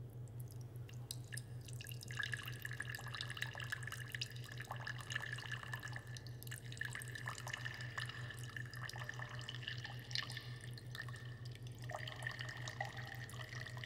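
A thin stream of liquid trickling and dripping into a tall glass, with a steady ringing tone from about two seconds in. A low steady hum runs underneath.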